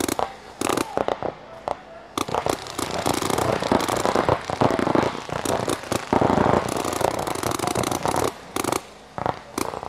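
Paintball markers firing in rapid, overlapping strings of shots. The shooting is sparse for the first couple of seconds, then comes thick and fast until near the end.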